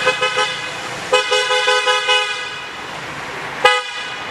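A vehicle horn tooting in rapid runs of short beeps, about six a second, then one more short toot near the end.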